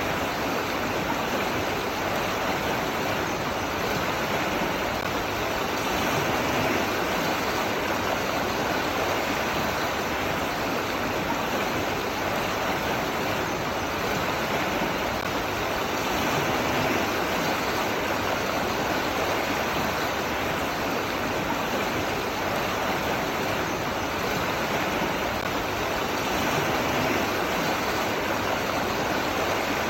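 Running water rushing steadily and evenly, as from a stream or small waterfall.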